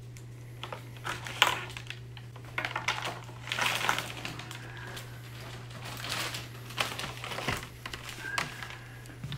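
Plastic wrapping and tubing of a balloon catheter kit crinkling and rustling in irregular bursts as gloved hands unwrap it, over a steady low hum.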